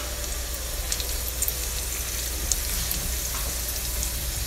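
Sliced garlic and crushed red pepper flakes sizzling steadily in olive oil in a nonstick frying pan, with a few faint crackles.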